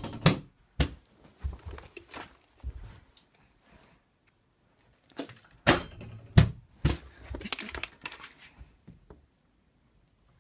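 Plastic water bottle thrown up at a wooden door, knocking against it and clattering to the floor: a burst of sharp knocks at the start and a louder one about six seconds in, with phone handling rustle in between.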